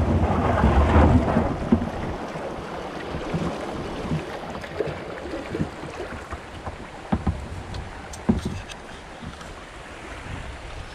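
River water rushing over a shallow, stony rapid around an inflatable kayak, with wind buffeting the microphone. It is loudest at first and dies down after about two seconds to quieter flowing water, broken by scattered light knocks and splashes.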